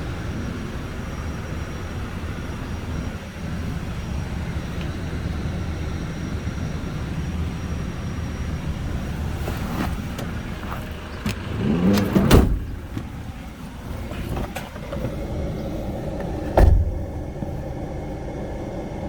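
Hyundai H1 Starex's 2.5-litre turbo diesel engine running steadily. About twelve seconds in, a brief rising sound ends in a sharp knock, and a second knock comes about four seconds later.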